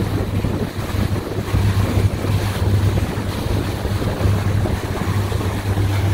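Outboard motor running under way with a steady low drone, over the rush of the boat's wake and wind buffeting the microphone.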